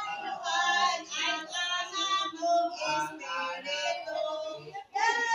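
A child and women singing together.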